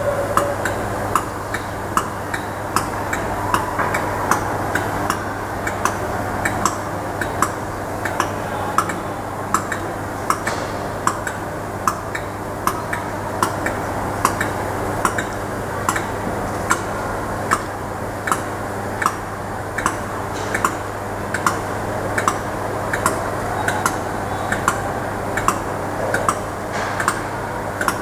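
Class 86 AC electric locomotive standing with power on, giving a steady low electrical hum, while a sharp regular ticking sounds a little under twice a second.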